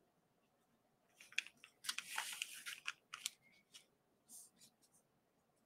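Quiet scraping and tapping of a paintbrush against a plastic paint palette as paint is picked up and mixed: a cluster of short scratchy clicks starting about a second in, with a few fainter taps later.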